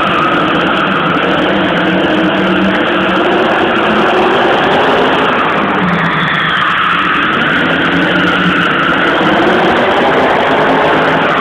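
Drift cars' engines revving hard, the pitch rising and falling as the cars slide, with tyres squealing on the arena floor.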